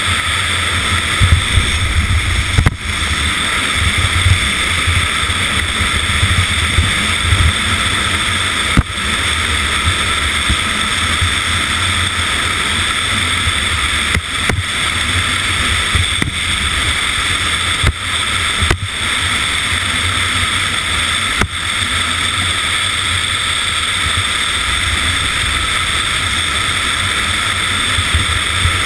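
A bobsleigh running at speed on an ice track: a steady, loud rush of wind and steel runners on ice, broken by about seven short knocks as the sled jolts.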